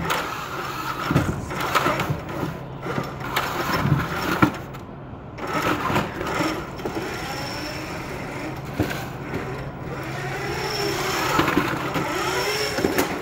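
FIRST robotics competition robot's electric drive motors and gearboxes whining, the pitch rising and falling as it speeds up, slows and turns. Short knocks come from its intake and frame bumping the foam-filled power cubes.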